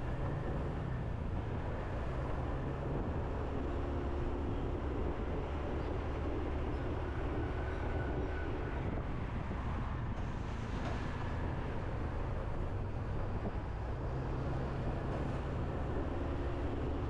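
Motorbike riding steadily along a road: a constant low rumble of engine and road noise with wind on the microphone.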